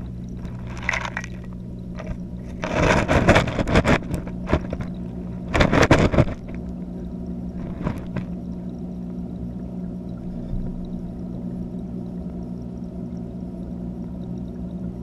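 Underwater sound inside an aquarium, picked up by a camera in a waterproof housing: a steady low electrical hum from the tank's equipment. Three louder bursts of water noise break in, about a second in, around three seconds in and around six seconds in.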